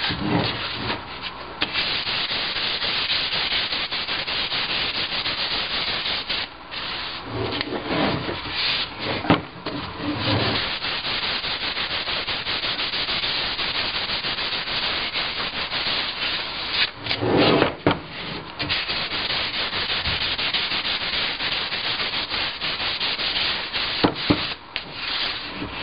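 Fine 1500-grit wet/dry sandpaper rubbed by hand over the dried polyurethane finish of a wooden insect drawer, a steady scratchy hiss that smooths out the roughness of the cured coat. It breaks off a few times with brief knocks as the drawer is turned over on the bench.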